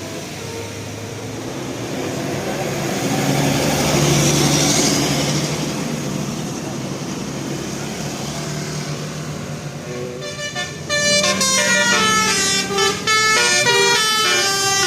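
A bus goes by, its engine and road noise swelling to a peak about four seconds in. From about eleven seconds in, a Basuri telolet musical horn plays a fast tune of stepping notes.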